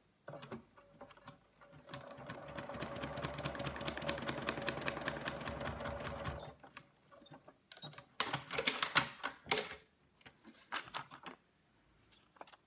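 Domestic sewing machine stitching a short seam through fabric and foundation paper: a few slow stitches, then running steadily at speed for about four and a half seconds before stopping. Clicks and paper rustling follow as the pieced block is pulled out from under the presser foot.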